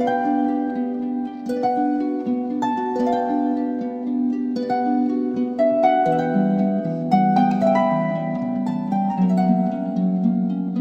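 Background instrumental music: a melody of plucked notes over held low tones.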